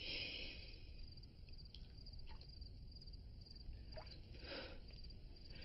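Faint crickets chirping steadily in the background, a high pulsing trill, with a couple of soft breaths.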